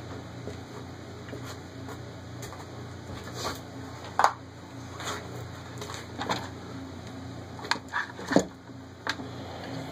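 Scattered knocks and clatter from handling parts on a wooden workbench as a 1/10-scale RC monster truck and its motor-and-transmission assembly are set down and moved, with a sharp knock about four seconds in and several more near the end, over a steady low hum.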